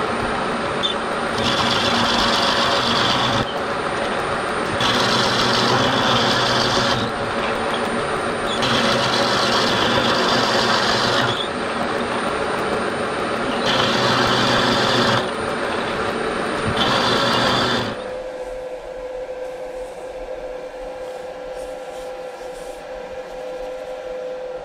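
Vertical milling machine with a carbide end mill cutting a flat on a cylinder-cover casting: a dense cutting noise that swells and eases every two to three seconds as the cut goes on. About eighteen seconds in the cutting stops, leaving the machine running with a steady hum.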